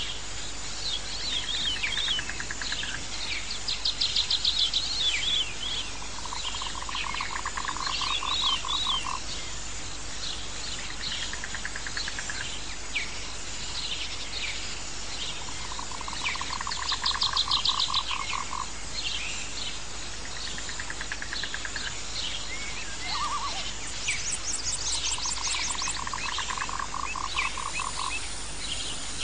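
Nature ambience of a frog's pulsed trill, lasting about two seconds and returning about every nine seconds, with birds chirping and trilling over it.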